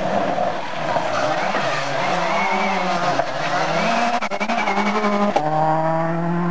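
Peugeot 206 WRC rally car engine at full speed through a corner, its note rising and falling with throttle and gear changes. A rapid run of pops comes about four seconds in, then the pitch drops suddenly as the car passes, leaving a steady lower note.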